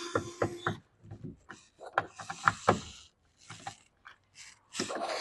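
A cordless screwdriver's whir stops under a second in, then a run of sharp clicks and knocks as small screws and plastic pump parts are handled.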